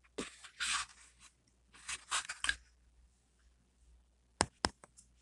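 Faint, short soft rustles in the first half, then four quick sharp clicks close together near the end.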